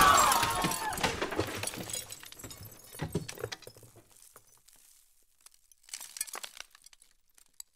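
Glass shattering: the crash dies away over the first two seconds, then scattered pieces tinkle and settle, with a last small flurry about six seconds in.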